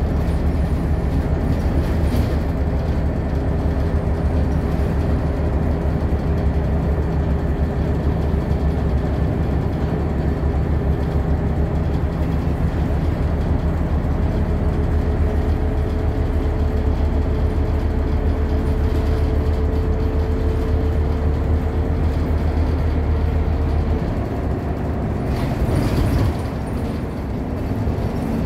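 Inside a moving bus: steady low engine drone and road noise, with a faint, slowly rising whine above it. About 24 seconds in, the low drone drops away.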